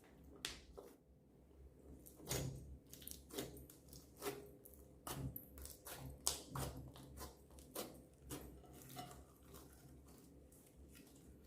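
Glittery clear slime being squished and stretched by hand, giving faint, irregular sticky pops and clicks that thin out near the end.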